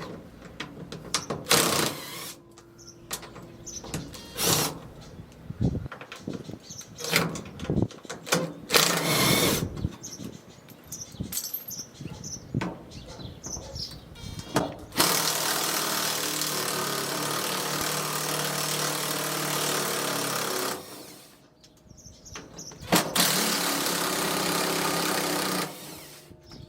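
Power drill fitted with a T40 Torx bit, backing out the bolts of a windshield washer pump assembly: several short bursts in the first half, then two long steady runs of several seconds each, with a short pause between them.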